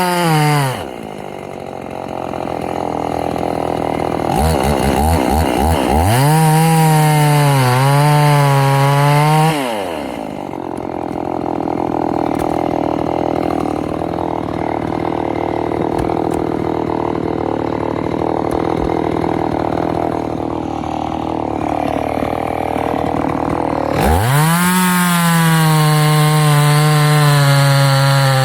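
Husqvarna 50 Rancher two-stroke chainsaw running: revved high briefly at the start, dropping to idle, revved again from about four seconds to about ten seconds, idling steadily for a long stretch, then revved high again near the end.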